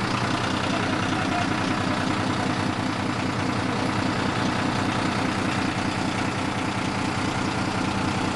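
Heavy vehicle engine running with a steady low hum, amid city street traffic noise.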